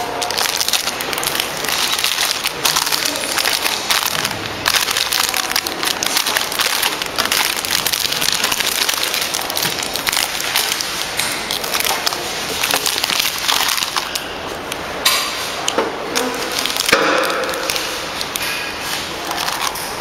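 Clear plastic wrapping film crinkling and crackling as a flow-wrapped switch panel is handled, dense and continuous.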